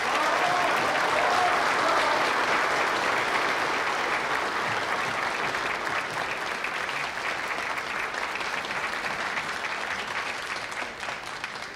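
A large crowd applauding, with a voice or two heard through the clapping about a second in; the applause slowly dies away near the end.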